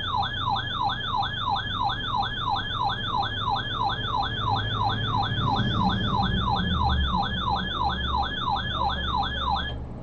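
Weather alert radio's electronic alarm sounding a warbling siren tone that rises and falls about three times a second, signalling an incoming severe thunderstorm warning; it cuts off just before the end.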